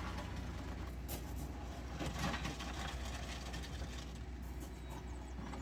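A steady low motor hum with scraping and scattered knocks as wet concrete is mixed in a 5-gallon plastic pail.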